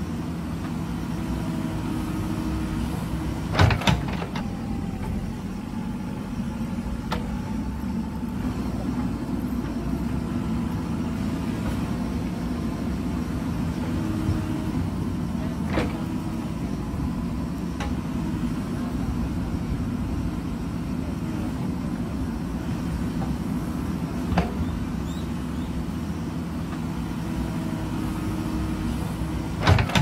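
JCB backhoe loader's diesel engine running steadily under load as the backhoe arm digs and swings. A few short, sharp knocks from the bucket and arm come through it: a pair about four seconds in, single ones later, and a louder one near the end.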